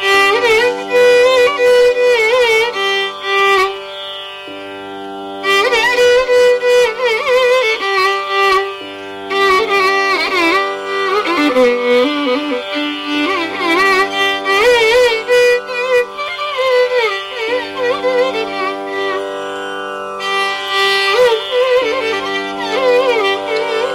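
Carnatic music in raga Sankarabharanam: a melodic line with sliding, oscillating gamaka ornaments over a steady drone. The melody pauses twice, about four seconds in and again near the twenty-second mark, leaving only the drone.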